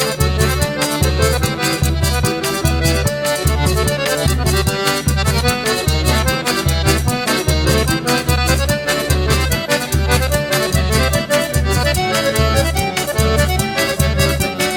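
Instrumental forró pé de serra: an accordion plays the melody over a steady low zabumba drum beat.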